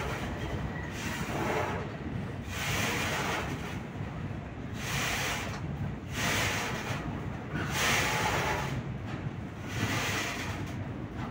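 Low rumble of a slow-moving train heard from on board, with wind buffeting the microphone in uneven gusts every second or two.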